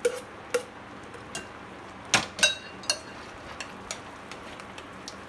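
A kitchen utensil knocking and clinking against a bowl as mashed sweet potato is scraped in, in a scattering of separate taps, with the two sharpest clinks a little after two seconds, one of them ringing briefly.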